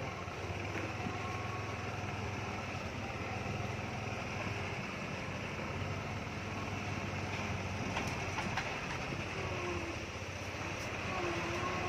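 Steady low drone of vehicle engines at slow speed, heard from close behind a loaded sugarcane truck.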